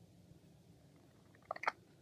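Footsteps crunching in snow: a few quick, short crunches close together near the end, over a faint low rumble.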